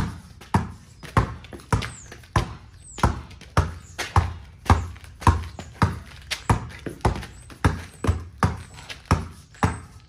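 Basketball dribbled on concrete in an even rhythm, a little under two bounces a second; the ball is somewhat low on air.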